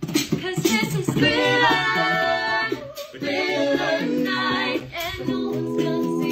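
A cappella singing with a woman's voice in front. About five seconds in, several voices settle into a held chord.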